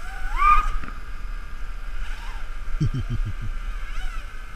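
A racing multirotor's SunnySky 2205 2300KV brushless motors whining in flight, their pitch rising and falling as the throttle is worked, then holding a steady high whine. A short low rumble comes about three seconds in.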